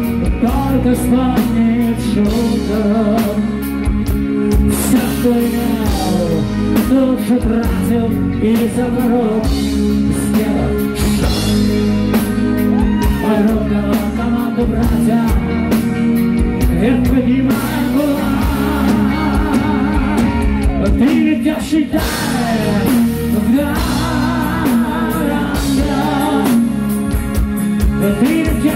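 Live rock band playing a ballad: a male lead singer sings over amplified electric guitar, bass and a drum kit.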